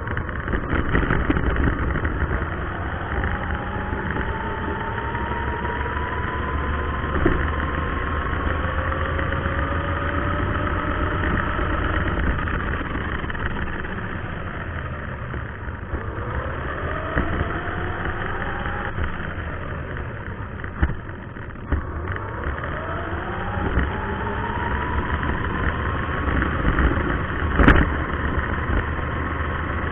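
Electric motor and gear whine of a Xinlehong 9125 RC car driving, heard from a camera mounted on the car. The whine rises in pitch each time it speeds up, several times over, above a steady low rumble, with one sharp knock near the end.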